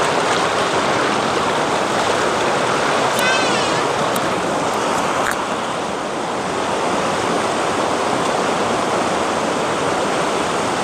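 Shallow rocky river rushing steadily over boulders and small rapids.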